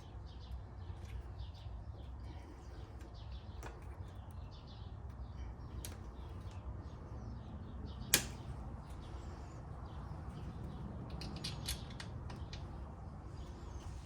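Scattered small clicks and clinks of hand tools and parts being handled during ATV reassembly, with one sharp click about eight seconds in, over a steady low hum.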